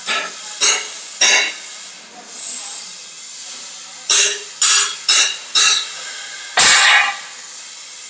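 Curved steel sheet flexing and clattering in about eight short bursts as it is handled at a plate-rolling machine, the loudest a heavy bang about two-thirds of the way through, over a steady workshop hiss and hum.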